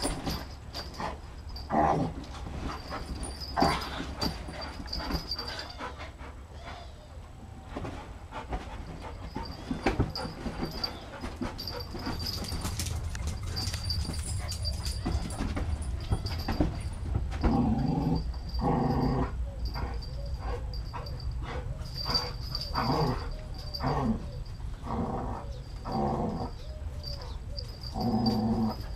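Two dogs play-fighting, giving repeated short growls and yips, coming thicker in the second half.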